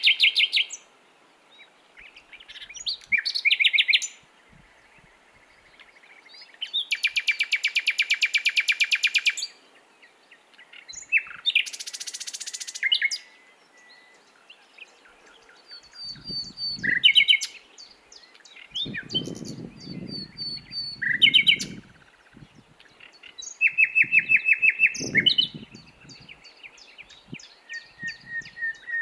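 Common nightingale singing: about eight short, varied phrases, each one or two seconds long, separated by pauses. They include fast runs of rapidly repeated notes, a harsh buzzy rattle and clear whistled notes.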